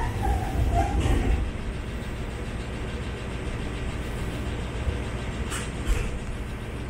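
Furano-Biei Norokko tourist train moving slowly past a station, heard from its open observation car. A steady low rumble of the running train is heard, with two sharp knocks about five and a half seconds in.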